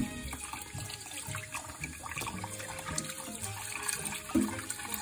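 Kitchen tap running steadily into a bowl of water in a stainless steel sink, splashing as a gutted fish is rinsed under the stream.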